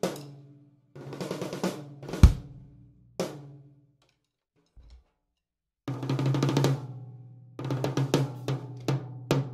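Drum kit played in short fills around toms fitted with new Evans UV1 heads and a Hydraulic Red floor tom head, the toms ringing on after the strokes, with one hard low hit a little past two seconds in. The playing stops for about two seconds in the middle, then picks up again with quick tom strokes.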